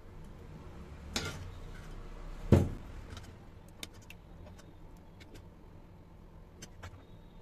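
Steel spoon knocking and clinking against a steel pot while liquid is scooped from it into a hollowed-out mango: two knocks a second or so apart in the first few seconds, the second the loudest, then a few light clinks.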